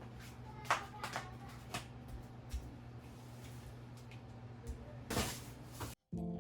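A few light knocks and clicks of household objects being handled, with a short scrape or rustle about five seconds in, over a steady low hum.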